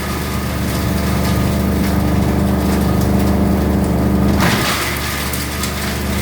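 Coconut husk shredding machine (cocopeat/cocofiber machine) running, its engine or motor giving a steady hum under a dense crackling of husk being crushed and torn apart.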